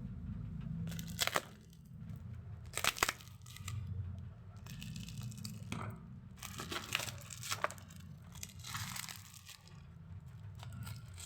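Packaging being torn open and plastic wrapping crinkling in irregular rustles and a few sharp snaps, over a steady low hum.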